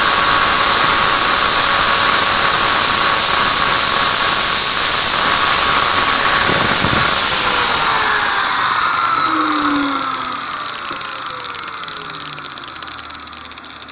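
Electric angle grinder running at a steady high whine, then switched off about seven seconds in and winding down, its pitch falling as the disc slows.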